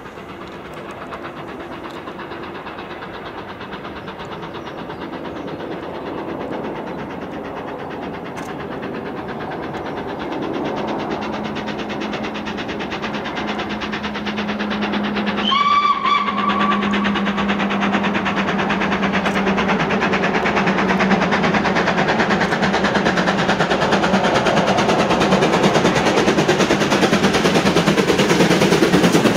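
LNER B1 class 4-6-0 steam locomotive approaching with a passenger train, its running and wheel noise growing steadily louder as it nears and passes close by. It sounds its whistle once, briefly, a little over halfway through.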